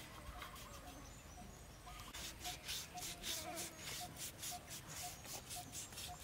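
Rhythmic scraping strokes, about four a second, starting about two seconds in, over a faint short chirp repeating about twice a second.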